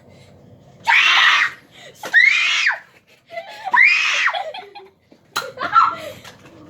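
A child screaming: three loud, high-pitched shrieks, each under a second long. Near the end there are a few sharp clicks and broken cries.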